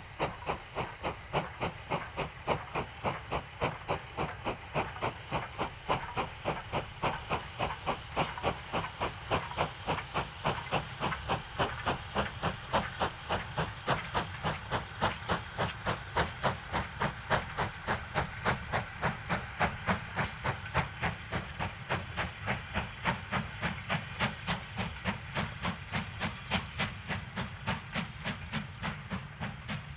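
Q class 0-6-0 steam locomotive No. 30541 working hard with a goods train, its chimney exhaust beating sharply and evenly at about three beats a second as it passes. The loaded wagons rumble by behind it near the end.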